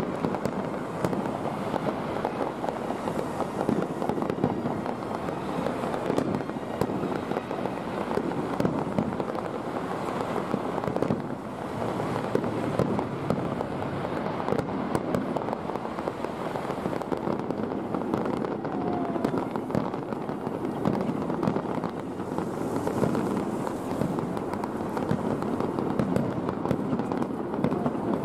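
Fireworks display: many shells bursting in quick succession, a dense, unbroken run of overlapping bangs.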